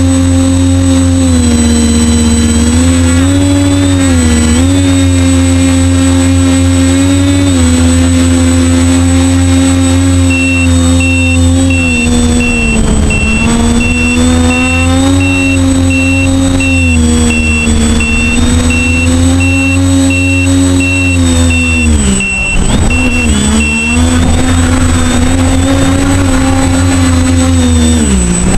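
Motors and propellers of an FPV aircraft, heard through its onboard camera, running as a steady loud whine with small swells in pitch as the throttle changes. It dips briefly twice a little past two thirds of the way in, and it starts to wind down at the very end.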